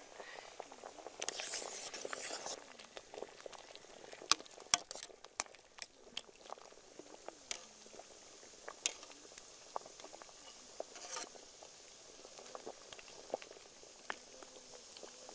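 Pumpkin pieces boiling in water in a large metal pot, a steady hiss of bubbling, with a metal ladle stirring and clinking against the pot in sharp ticks, most densely about four to five seconds in. A short rush of noise comes about a second in.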